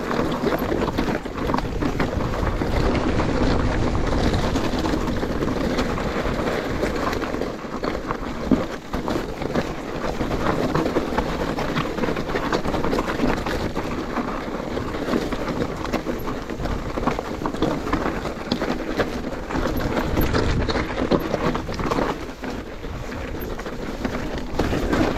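Mountain bike riding over a rough trail: a steady rushing noise of tyres and air, broken by frequent short rattles and knocks from the bike.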